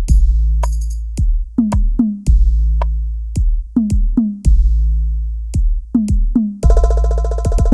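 Hadroh percussion music remixed with heavily boosted bass: deep booming bass drum under quick drum strikes that drop in pitch as they ring. About 6.7 seconds in, a sustained synthesizer chord joins.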